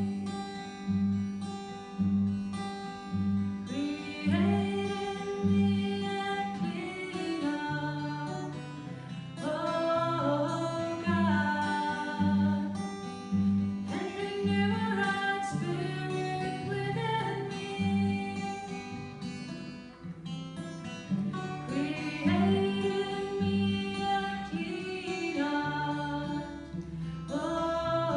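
Acoustic guitar accompanying a singer in a slow worship song, the guitar keeping a steady pulse of low notes under the voice.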